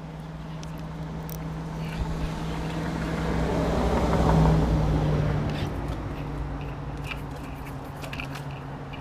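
A motor vehicle's engine passing by: a steady hum that grows louder to a peak about halfway through, then fades again.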